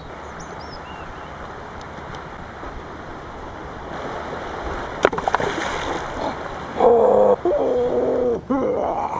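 River water running steadily, with a sharp knock about five seconds in. From about seven seconds a loud, drawn-out roar comes from the costumed chupacabra creature, in about three long pitched bursts.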